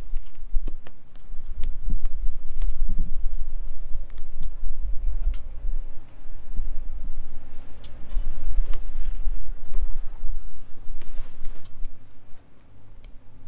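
Wood fire burning in a folding stainless-steel hobo stove, crackling with many irregular sharp pops and snaps. A gusting low rumble runs underneath and is the loudest part.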